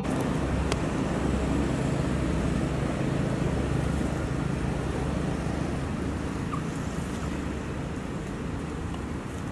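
Steady low rumbling background noise, easing slightly toward the end.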